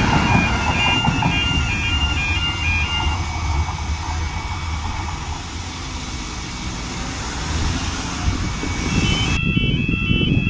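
Tyne and Wear Metro train rumbling past on the rails over a level crossing, while the crossing's two-tone warning alarm warbles for the first few seconds. The rumble fades as the train clears. Near the end the alarm starts again suddenly.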